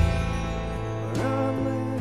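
A live band playing a slow song: acoustic guitar, electric bass and drums, with a drum hit at the start and a wavering melody line, likely the lead vocal, sliding in about halfway through.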